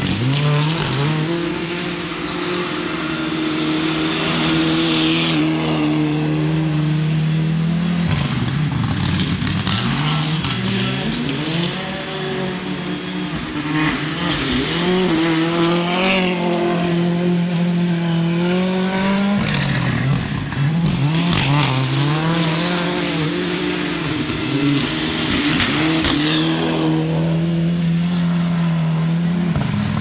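Rally car engine held at high revs through long slides, the revs dropping and climbing back a few times, with tyres squealing.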